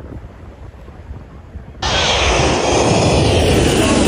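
A jet airliner passing low overhead: a loud engine roar that starts abruptly just under two seconds in, with a slow falling sweep in pitch as it goes by. A quieter low rumble comes before it.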